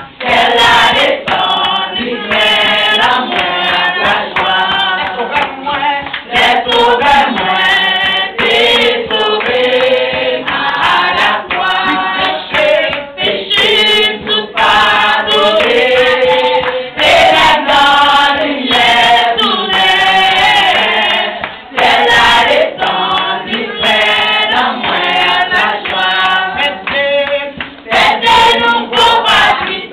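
A group of women singing a worship song together, with sharp, regular beats running through the singing.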